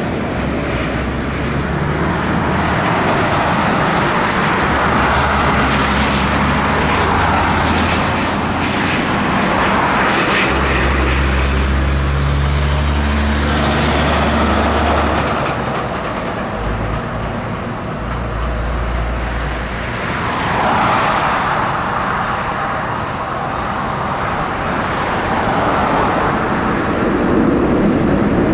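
Jet airliner engine noise, with wind rumbling on the microphone. A faint high whine rises and falls about halfway through.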